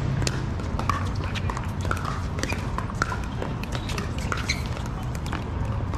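Pickleball paddles striking the hollow plastic ball in a rally: sharp pops at an uneven pace, with more pops coming from games on the neighbouring courts. A steady low hum runs underneath.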